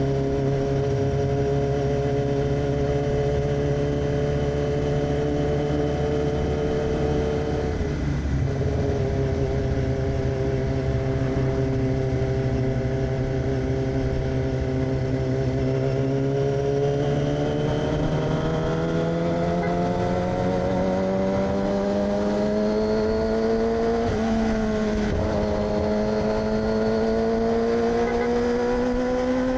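A 2006 Yamaha R6's inline-four engine, running through an aftermarket AR exhaust while riding. The note holds steady and dips briefly about eight seconds in, then climbs slowly through the second half, with another short dip shortly before the end.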